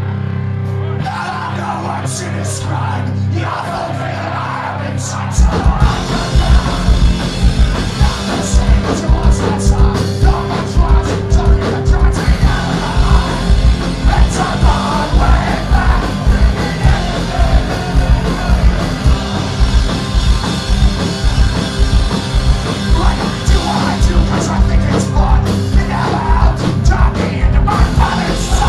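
Punk rock band playing live through a club PA: electric guitars and bass with shouted vocals. About five seconds in the drums come in and the whole band plays loud and driving.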